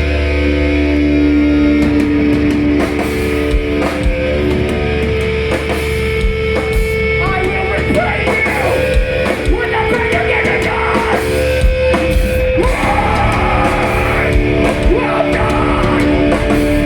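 Metalcore band playing live at full volume: heavy guitars held over drum hits, with a vocalist coming in through the middle.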